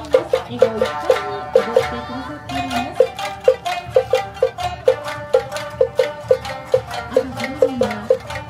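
Awa odori accompaniment with shamisen plucking over a quick, steady beat of sharp strikes.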